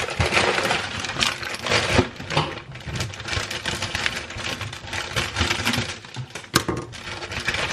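A shipping package being unpacked by hand: cardboard and packing material rustling and scraping, with many small clicks and knocks.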